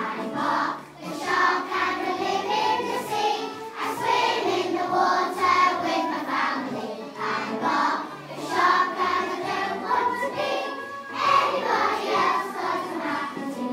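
A group of young children singing together in unison over an instrumental accompaniment with a steady bass line.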